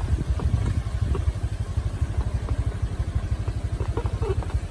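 An engine running slowly with a steady, rapid low throb, and a few light clicks and rattles over it.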